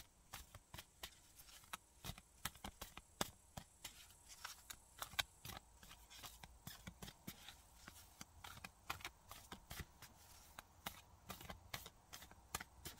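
A tarot deck being shuffled by hand: a faint, steady run of irregular card clicks, several a second.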